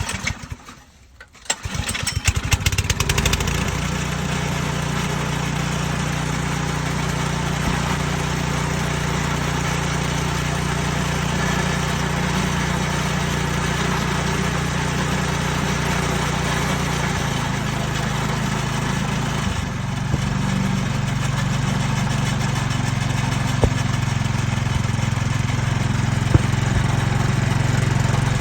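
Snowblower's small gasoline engine starting about two seconds in, running rough for a moment, then settling into a steady run, its pitch shifting slightly about two-thirds of the way through. It runs smoothly after its carburetor main jet has been cleaned.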